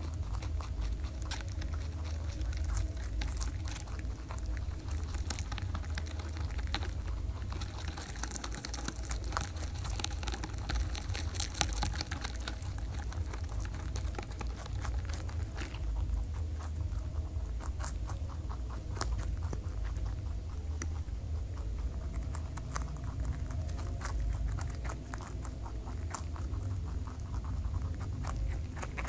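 Rabbits chewing raw vegetables such as carrot close to the microphone: a fast run of small crisp clicks and crunches, busiest about a third of the way in, over a steady low hum.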